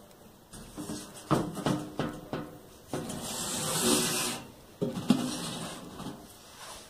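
Rusty metal roll-top bread box being handled on a table: a run of sharp metal knocks and clatters, then a rough scraping rub lasting over a second as the curved lid slides in its tracks, then a few more knocks.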